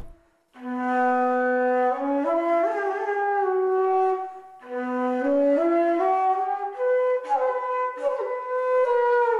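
Solo flute melody in two slow phrases, each climbing step by step from a low note to held higher notes, with a brief break between them.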